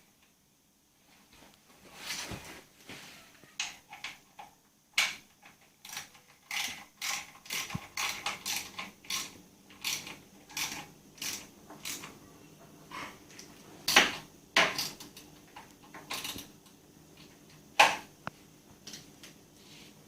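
Hand tools working on a mini bike's front mudguard fittings: a run of sharp clicks, about two a second, then a few louder metal knocks near the end.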